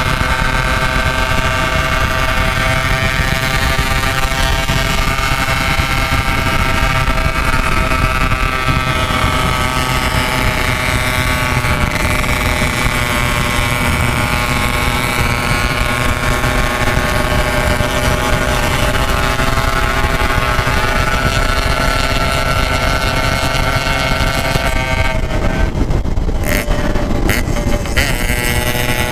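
Yamaha RX-King 135cc two-stroke single-cylinder motorcycle engine running steadily at cruising speed through a packed aftermarket 'packing power' exhaust.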